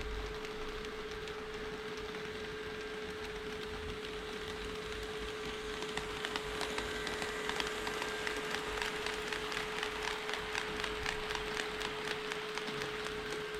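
HO-scale model train running on KATO Unitrack: rapid clicking of the wheels over the rail joints, which gets louder about halfway through as the train draws near, over a steady hum.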